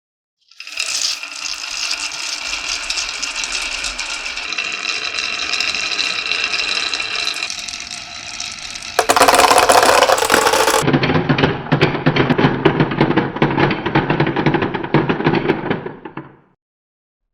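Many marbles rolling and clattering down a marble run track as a dense, continuous rattle. About nine seconds in it turns abruptly louder and fuller as the marbles reach a different section, then stops about a second before the end.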